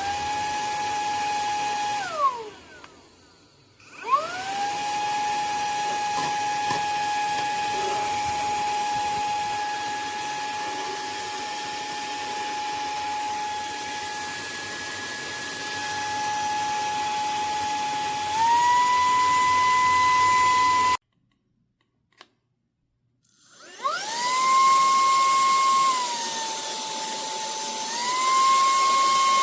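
A cordless handheld vacuum's brushless motor running with a steady high whine. It switches off and winds down about two seconds in, then spins back up. Later it steps up to a higher speed setting, stops briefly, and shifts down and back up between speeds near the end.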